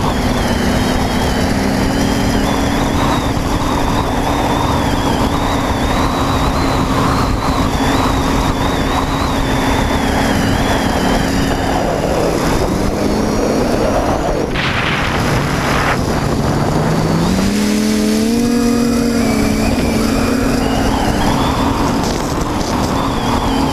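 TBS Discovery Pro quadcopter's electric motors and propellers buzzing, with wind rushing over the onboard microphone. The motor pitch sags a little past halfway, with a brief louder rush of air, then climbs again as the throttle is opened.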